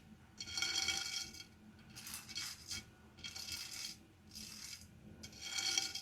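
Slime being handled and pressed for ASMR, making crackly, crunchy sounds in five bursts about a second apart.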